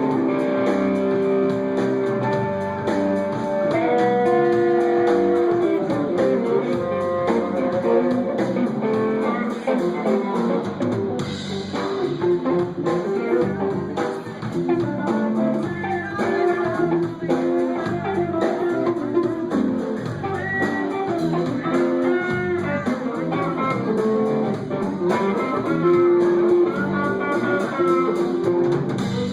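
Live band playing an instrumental passage with a guitar lead, its notes bending up and down over the full band.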